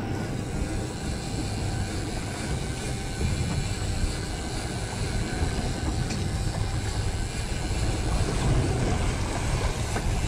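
Steady low rumble and hiss of wind buffeting the microphone and sea water moving around a boat's hull.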